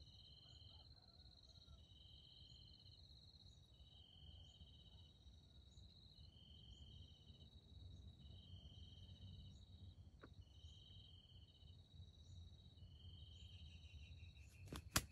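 Faint chorus of chirping insects: a steady high buzz with a pulsed chirp repeating about once a second. A couple of sharp clicks come right at the end.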